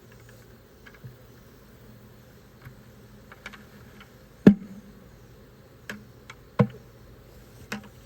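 A bucket of honeybees is knocked several times to shake the last bees out of it. The sharp knocks come irregularly, the loudest a little past halfway, over a faint steady buzzing of bees.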